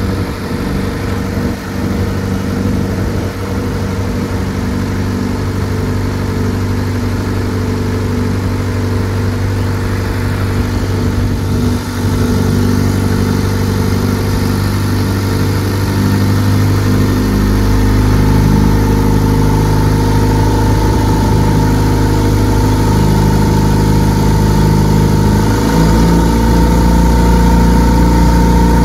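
Viking Honda 130 aircraft engine running uncowled on the ground and turning its propeller, steady at first, then picking up speed about 17 seconds in and again a few seconds before the end. On this run it has a vibration that the builder puts down to the flex plate, which turned out to be warped.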